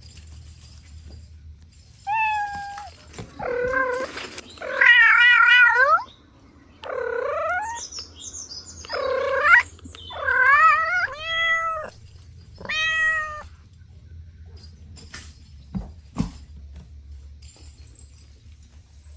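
Cats meowing: a run of about eight separate calls, several of them wavering in pitch, over about eleven seconds, followed by a couple of soft knocks. A steady low hum runs underneath.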